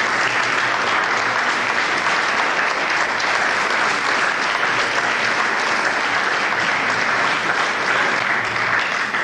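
Audience applauding steadily, dying down at the very end.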